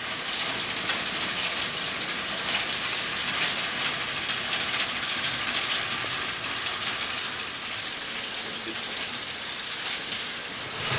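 Electric hay elevator running, its chain and flights giving a steady clattering rattle made of many fast, faint ticks.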